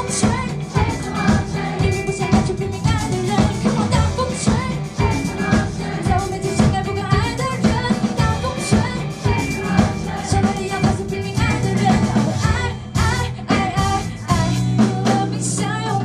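Live band performance: a singer's lead vocal into a microphone over electric guitar, bass and a drum kit keeping a steady beat, recorded from far back in the audience so it sounds distant and not very clear.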